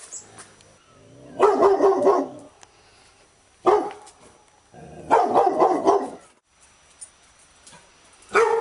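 Labrador retriever barking in bouts: a run of barks about a second and a half in, a single sharp bark near the middle, another run of barks a little later, and one more bark starting right at the end.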